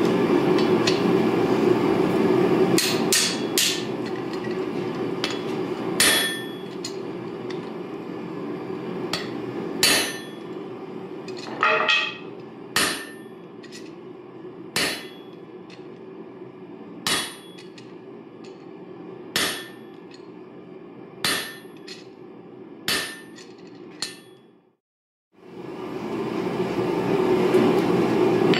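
Hammer blows on the top die of a guillotine fullering tool, driving it into a red-hot railroad spike to neck the steel. The blows come one every second or two, with a quick flurry about twelve seconds in, and each ends in a short metallic ring. A steady low roar runs underneath, loudest at the start and again after a brief cut near the end.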